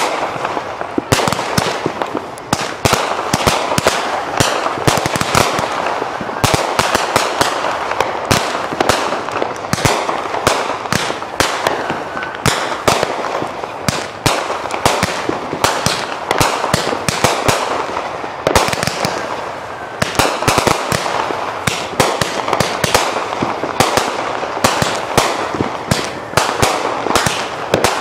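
Consumer aerial fireworks going off in quick succession: a continuous crackle of bursting effects laced with many sharp pops and cracks.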